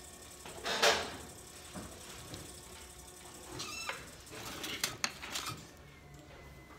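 Hand and tool noises at a pottery wheel: a short wet rush about a second in, a brief squeak in the middle, then a cluster of sharp clicks as a tool is picked up from the tray and set to the clay.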